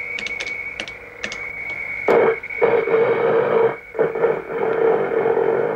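Computer-synthesized reconstruction of the moa's call played back through a speaker. A few light clicks come first; about two seconds in the call starts, a buzzy, hoarse sound on one steady low pitch, in several long pulses.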